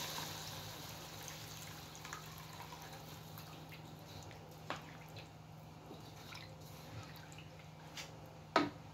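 Thin coconut milk poured into a hot wok of frying spice paste, the sizzle dying away as the liquid goes in, then a spatula stirring the liquid with small clicks and scrapes. A sharp knock near the end is the loudest sound.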